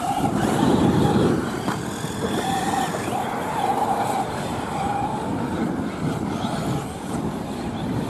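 Radio-controlled off-road short-course truck racing on dirt: a high motor whine that wavers and comes and goes as it speeds up and eases off, over a rough low noise that is loudest about a second in.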